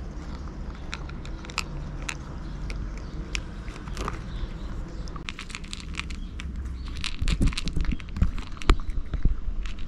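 A cat eating from a bowl close to the microphone: irregular chewing clicks, louder for a couple of seconds about seven seconds in.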